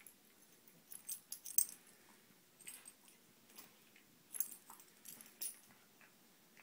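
Husky and miniature pinscher play-wrestling on a blanket, the pinscher nibbling at the husky: light, scattered clicks and jingles, loudest about a second in and again around four and a half and five and a half seconds in.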